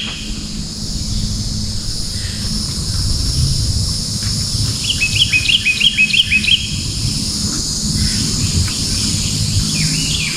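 A songbird singing a quick run of repeated chirping notes about five seconds in and again near the end, over a steady high insect drone, with a low rumble underneath.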